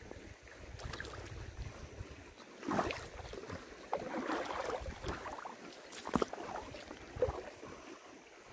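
Shallow river water sloshing and splashing at the rocks by his feet, in a few louder splashes, over the rumble of wind on the microphone.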